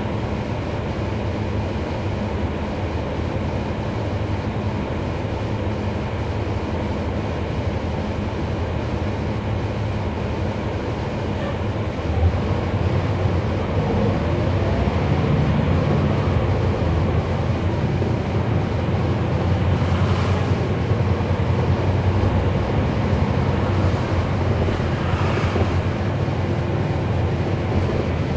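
Cummins ISL9 inline-six diesel and road noise of a NABI 40-SFW transit bus heard from inside the cabin: a steady low rumble that gets louder about twelve seconds in, with a rising tone as it picks up speed.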